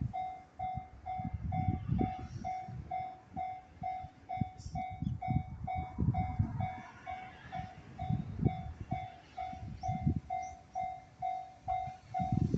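Level-crossing warning bell ringing in steady pulses, a little over two a second, while a freight train rolls slowly over the crossing, its wheels clattering over the rail joints in groups every few seconds.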